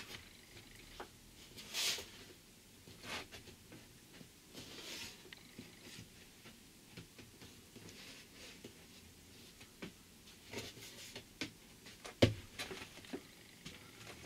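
Timber-framed wooden cabinet being handled and pushed into place against a van's ceiling and wall: scattered light knocks, taps and scrapes of wood on the panels, with one sharper knock about twelve seconds in.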